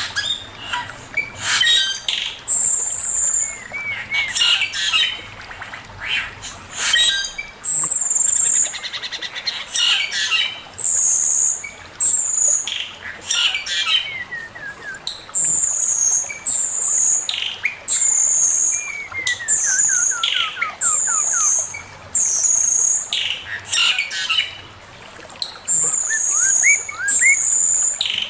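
Male poksay mandarin (a laughingthrush) singing and calling: a busy mix of harsh chattering notes, high repeated notes and runs of quickly falling slurred notes.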